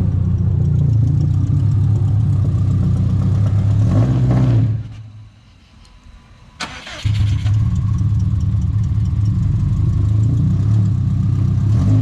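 Subaru STI's EJ257 flat-four engine running, stalling about halfway through, then cranked on the starter and catching again a couple of seconds later. It keeps dying, which the crew takes for flooding.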